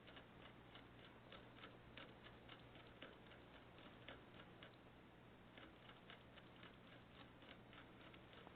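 Faint, quick, irregular clicking, a few clicks a second, from a small pet moving about its cage.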